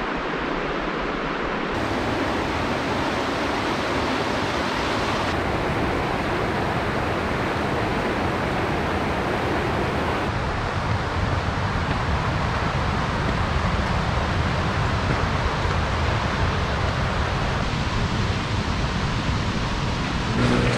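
Steady rushing outdoor noise of wind and running water, its tone shifting abruptly at cuts about 2, 5 and 10 seconds in. Around the middle it is a mountain creek cascading over granite slabs.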